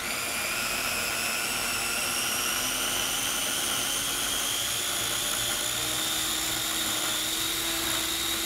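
Small electric food processor switched on and running, its motor whining steadily while chopping basil, garlic, pine nuts, Parmesan and olive oil into pesto. The pitch rises slowly as it runs.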